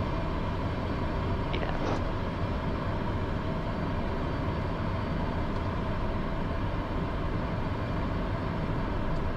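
Steady jet noise of a Cessna Citation CJ3+ climbing out just after takeoff: its twin turbofans at climb power and air rushing over the airframe, an even roar with a faint steady hum.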